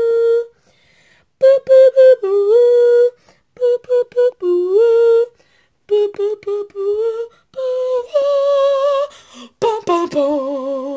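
A boy humming a wordless tune in held notes that step up and down, with short pauses and a wavering vibrato near the end.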